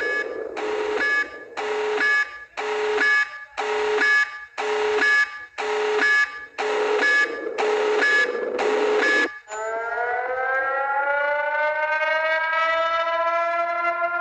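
Emergency alert alarm pulsing, a buzzy two-tone beep about once a second, each about half a second long. About nine seconds in it cuts to a siren tone that starts up and slowly rises in pitch.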